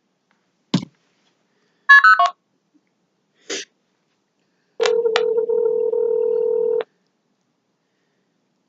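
Telephone line sounds: a short click, a brief burst of dialing tones, another click, then one ringback tone lasting about two seconds as a call is placed back to the number.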